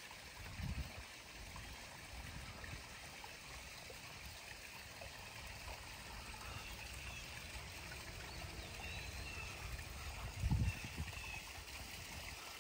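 Backyard koi pond waterfall: a steady wash of running water, with a low thump just after the start and a louder one about ten seconds in.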